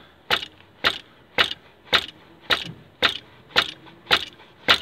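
Rubber mallet tapping a 12 mm spanner on a stuck glow plug in a diesel car's auxiliary coolant heater, to shock it loose. The sharp knocks come evenly, about two a second, nine in all.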